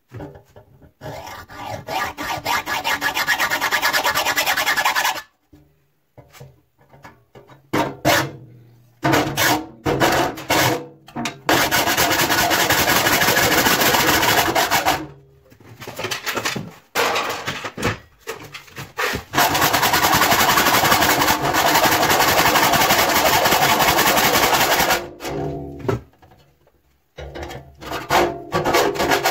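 Hacksaw cutting through the sheet-metal edge of a clothes-dryer door held in a vise: rapid back-and-forth rasping strokes. The sawing comes in several long runs, broken by short pauses near the start, about halfway and near the end.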